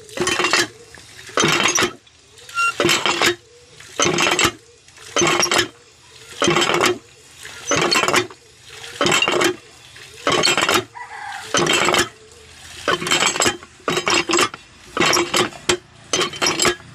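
Miniature DIY hand pump worked by its handle, giving a short clinking, splashy burst with each stroke. The strokes come evenly, about one a second, around fourteen in all.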